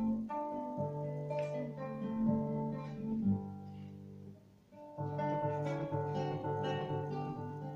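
Classical guitar played solo, plucked notes and chords. The sound dies away briefly about four and a half seconds in, then the playing picks up again.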